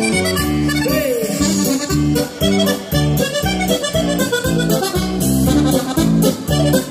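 Accordion playing a lively polka over a steady oom-pah accompaniment of alternating bass notes and chords.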